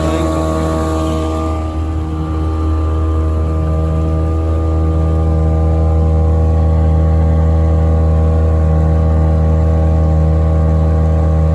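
Mercury 3.3 hp two-stroke outboard motor running steadily under way, pushing a small jon boat, with a high hiss that fades about two seconds in. It runs a little harder from about five seconds in.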